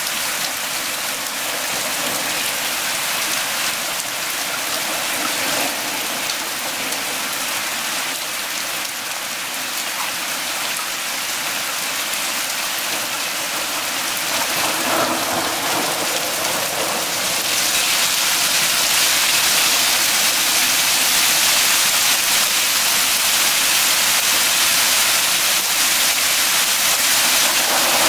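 Small hail and rain pelting a wooden deck, a glass tabletop and the trees around: a dense, even hiss that grows louder about two thirds of the way through.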